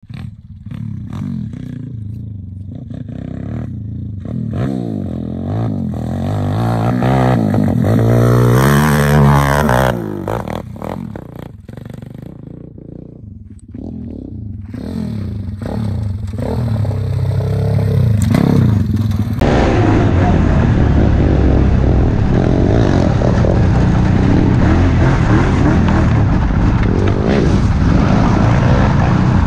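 190cc Welsh Pit Bike's single-cylinder engine being ridden hard, its pitch rising and falling as the rider works the throttle, loudest about nine seconds in, then fading before picking up again. After a cut about two-thirds of the way through, the engine runs steadily at high revs under a loud rushing noise.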